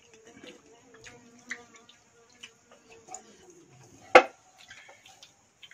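Eating by hand from steel bowls of watery fermented rice (basi pakhala): fingers squelching and splashing in the rice water, with small clicks and mouth noises. One sharp knock about four seconds in stands out as the loudest sound.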